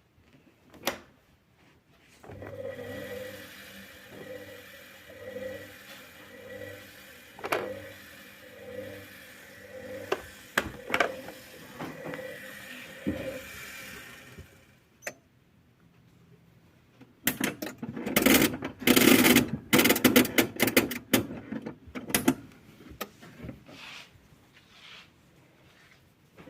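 Thomson washing machine in its wash cycle: the drum motor runs with a steady, evenly pulsing hum and a few clicks for about twelve seconds, then stops. A few seconds later comes a burst of loud rattling and knocking.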